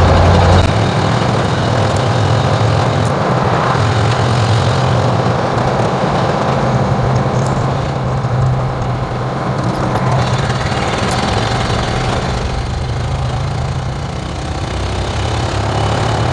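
1950 Ford F1's flathead V8 (8BA) running on the move, heard from inside the cab with road and wind noise. Its note steps up less than a second in and then holds steady.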